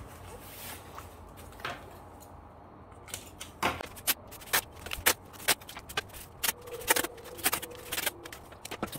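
Hands handling a plastic-wrapped cardboard box: white adhesive tape is stuck and pressed along the box's edges and the stretch film crinkles under the palms. It is quiet at first, then from a few seconds in there is a run of sharp crackles, roughly two a second.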